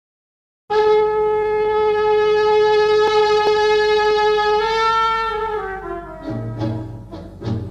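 Background music starting about a second in: a brass instrument holds one long note, then glides down into lower, shorter notes, with a low accompaniment coming in near the end.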